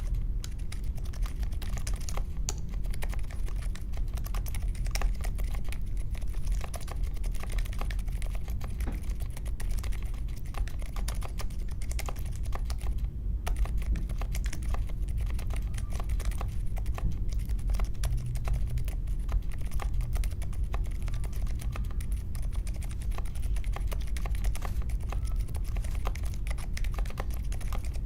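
Continuous fast typing on a mechanical keyboard with unlubed Akko CS Vintage White linear switches in an aluminium case with foam and tape mods, a dense stream of keystroke clacks. The typing pauses briefly about thirteen seconds in.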